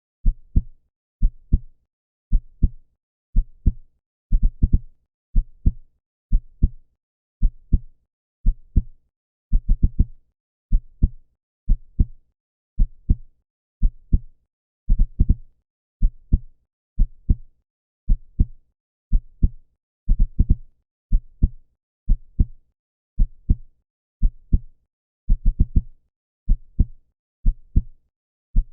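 Human heartbeat: steady low lub-dub double thumps, about one pair a second, with an even rhythm.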